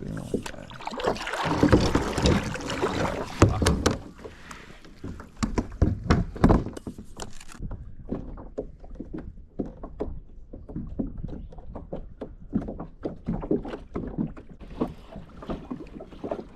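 A kayak moving on the water: a rushing wash of water and wind for the first few seconds, then irregular splashes and light knocks against the hull.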